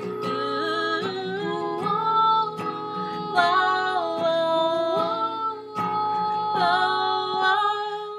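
Acoustic guitar playing with a female voice singing a wordless melody, held notes gliding between pitches.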